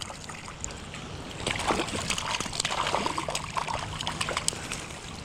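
Creek water trickling, with a run of splashes in the water from about a second and a half in to near the end.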